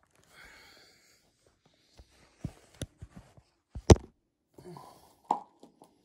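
Hard-plastic bicycle tool bottle's screw-on cap being tightened by hand: scattered sharp plastic clicks and knocks with handling noise, the loudest about four seconds in, after a brief hiss near the start.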